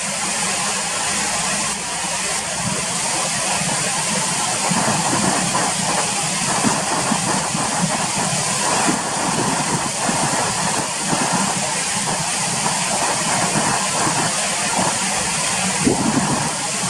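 River water rushing steadily over shallows, a loud even noise with a churning, rippling texture.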